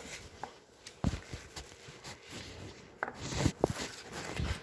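Wooden toolbox-kit pieces being handled on a work surface: a few irregular light knocks and rubbing of wood.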